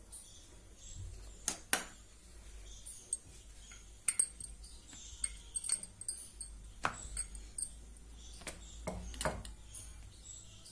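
Scattered light taps, knocks and small metallic clinks of hands pressing kuttu (buckwheat) dough out on a round rolling board, with a steel spoon and bowl used to spread oil on it. The clicks come irregularly, a few clustered about four to six seconds in.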